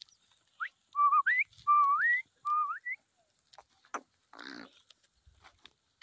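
A person whistling a run of clear notes between about half a second and three seconds in; each of the three main notes is held steady and then slides upward. A faint sheep bleat follows a little past four seconds in.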